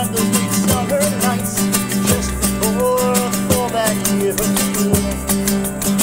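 Acoustic folk-rock music: quick, steady guitar strumming with a melodic line bending over it in the middle.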